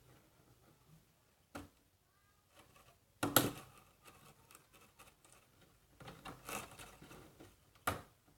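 Scissors snipping and trimming a thin plastic box: a few separate sharp cuts, the loudest about a third of the way in, then a quick run of small snips near the end.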